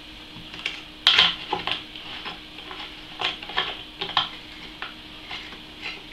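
Small metal parts of a CPU water block mount (screws, compression springs and caps) clicking and clinking as they are handled and fitted, about a dozen irregular clicks, the loudest about a second in.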